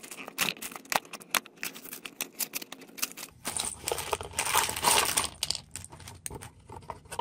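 Small cardboard LEGO box being punched open and its contents handled: a run of sharp clicks and taps of card, then a denser rustle of cardboard and plastic from about three and a half seconds in, easing off about two seconds later.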